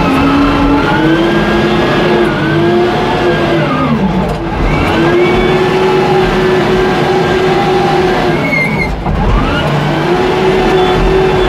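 Wheel loader's diesel engine running hard under load as the bucket pushes into soil, heard from inside the cab. Twice, about four seconds in and again near nine seconds, the revs sag and then climb back up.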